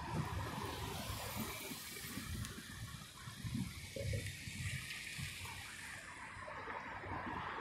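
A car driving past close by, the rushing hiss of its tyres on the road fading away over about six seconds.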